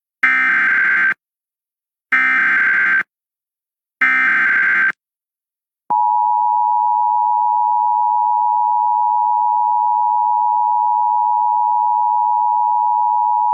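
Emergency Alert System header for a National Weather Service severe thunderstorm warning: three one-second bursts of SAME digital data tones about two seconds apart, followed about six seconds in by the steady two-tone EAS attention signal, held for about eight seconds.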